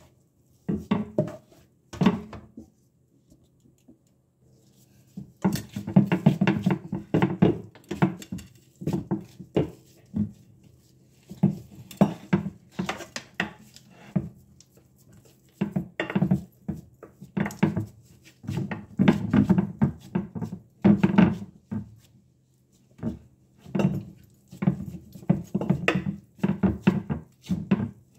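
Gloved hands and a wooden spatula patting and pressing a mashed potato and bulgur mixture flat on a ceramic platter: bursts of soft thuds and knocks, with the spatula and plate tapping against the counter. There is a short pause about three seconds in.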